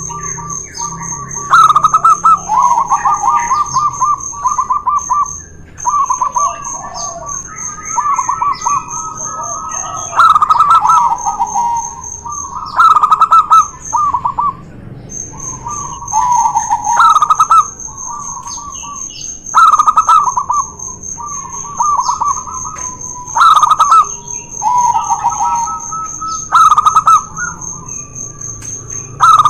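Zebra doves (perkutut) singing back and forth, two males trading repeated rolling, trilled coo phrases, the loudest notes coming every few seconds.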